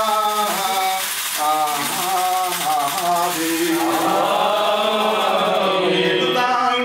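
Men's voices chanting a Malankara Orthodox liturgical hymn, with long held notes that bend gently in pitch.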